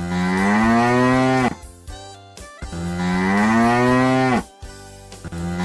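Cow mooing: two long moos about a second apart, each rising a little in pitch and then dropping as it ends, with a third moo starting right at the end.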